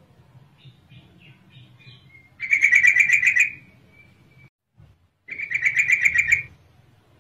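Yellow-vented bulbul (trucukan) calling: a few soft short notes, then two loud phrases of rapid repeated notes, each about a second long, the second starting a little after five seconds in. The recording is presented as a female's call to males, used as a lure.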